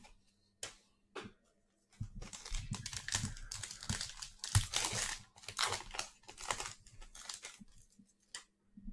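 Thin plastic packaging crinkled and torn open by hand: a couple of short crinkles, then a long stretch of dense rustling and tearing from about two seconds in.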